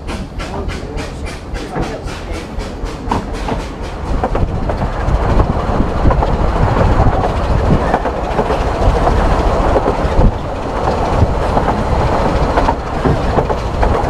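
Narrow-gauge steam train heard from an open carriage, getting louder as it gathers speed. For the first few seconds there is a fast, even beat, then a steady loud rumble with the clatter of wheels on the track.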